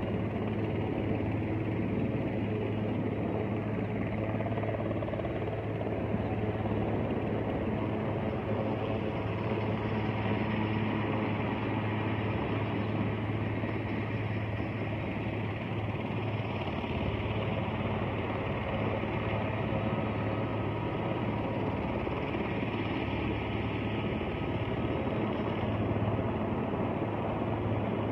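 Helicopter hovering at a distance, a steady drone of rotor and engine with a constant low hum.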